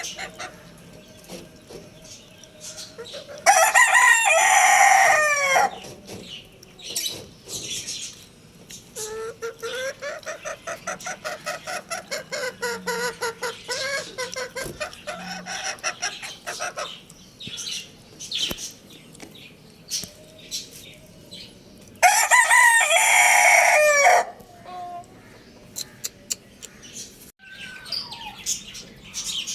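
Roosters crowing: two loud, drawn-out crows of about two seconds each, one a few seconds in and one about two-thirds of the way through. Between them come quieter, rapidly repeated clucking calls from the chickens.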